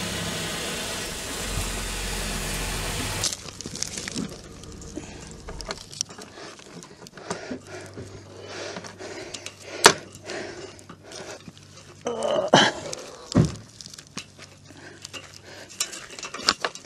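Steady vehicle engine noise that cuts off after about three seconds, followed by close-up handling noise: clicks, light rattles and rustling as a thin cable is worked by hand in the grass, with one sharp click about ten seconds in.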